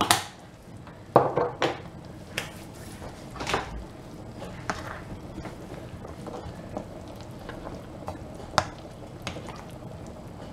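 Black plastic spoon stirring a full stainless-steel stockpot of lamb shank stew, with scattered knocks and scrapes of the spoon against the pot over a faint steady background.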